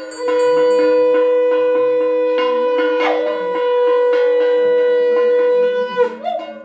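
Conch shell (shankh) blown for a puja in one long, steady note of about six seconds that drops off at the end. A dog howls along faintly in a wavering pitch.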